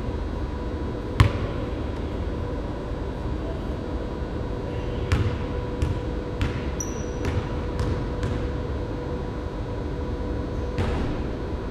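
Basketball bounced on a hardwood gym floor: one loud, sharp bounce close by about a second in, then fainter bounces about every half second as the dribbling moves away across the court.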